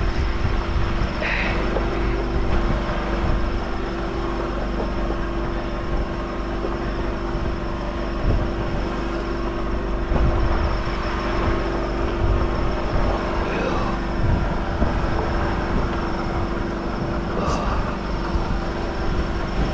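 An engine runs steadily, giving a constant hum over a low rumble.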